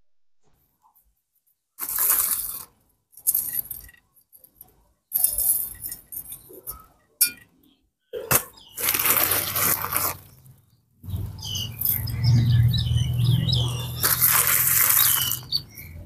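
A metal scoop dug into a plastic bag of small volcanic-rock granules and sprinkled over gravel in a shallow pot: several short spells of rattling grit and crinkling plastic, with brief quiet gaps between them.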